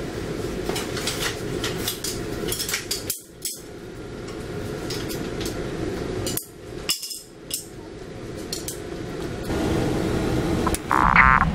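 Repeated sharp clinks and taps of glass and metal over a steady low hum. Near the end, music with a steady pitched pattern comes in.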